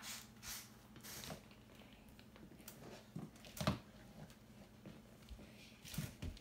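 Quiet room tone with a faint low hum, broken by a few brief soft rustles and taps from hands on book pages and a doll, the loudest a little past halfway through.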